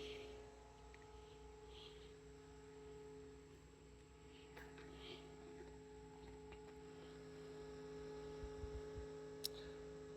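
Faint, steady hum made up of several fixed tones from two computer cooling fans mounted back to back on a welding helmet, running. A few light handling clicks sound about halfway through and near the end.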